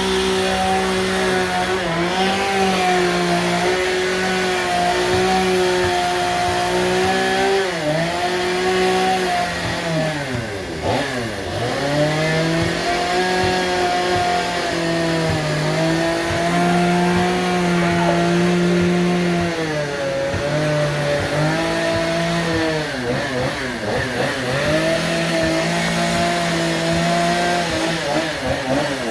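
Chainsaw running while carving wood, holding a steady high engine speed and dipping in pitch several times, around 8, 11, 20, 23 and 29 seconds in.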